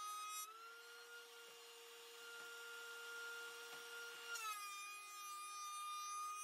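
Benchtop thickness planer running steadily. Its motor pitch rises as a pass ends about half a second in, and it runs free until about four seconds in. Then the pitch drops and a hiss of cutting comes in as an olive wood board is fed through for another pass.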